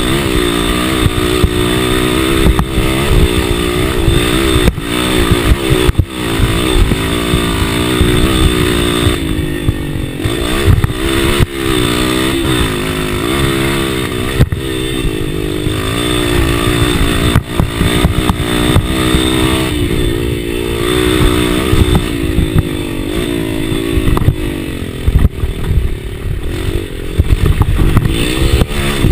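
Dirt bike engine heard from on board, its pitch rising and falling over and over as the rider works the throttle and shifts gears along a rough trail. Occasional sharp knocks and rattles are heard over the engine.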